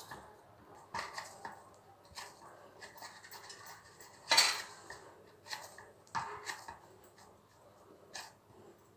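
Hand kneading cooked rice-flour dough on a stainless steel plate: soft scraping with scattered clinks and knocks of fingers and dough against the metal. The loudest knock comes about halfway through.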